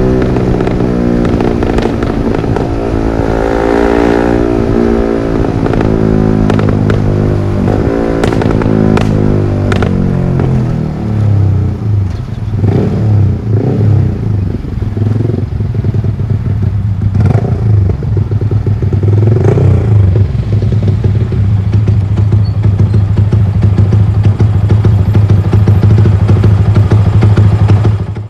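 Yamaha R15 V3's single-cylinder engine through a Villan MP1 aftermarket exhaust, revving up and down. Around the middle come short throttle blips with crackles and pops on the overrun. Near the end it holds a steady note, then cuts off suddenly.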